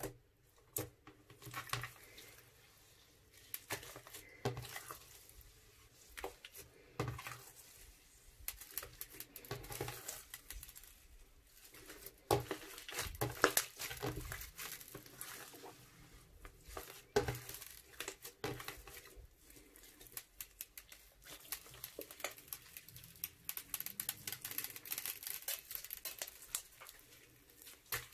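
Crunchy slime being squeezed and mixed by hand in plastic piping bags: irregular crackling clicks and crinkling plastic, in a steady run of small, sharp sounds.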